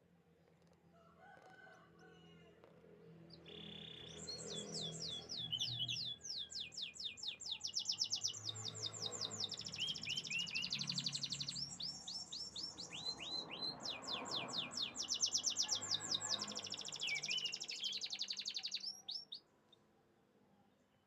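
Domestic canary singing one long song of rapid trills: fast runs of repeated sweeping high notes. It starts about four seconds in and stops abruptly near the end.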